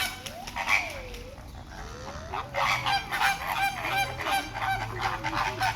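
Birds calling: a few gliding whistled notes in the first half, then a quick run of short repeated calls, about three a second, from about halfway through to near the end.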